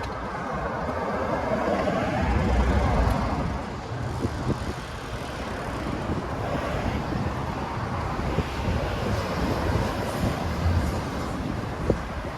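City street traffic noise: a vehicle passes close, loudest about two to three seconds in, then a steady hum of traffic.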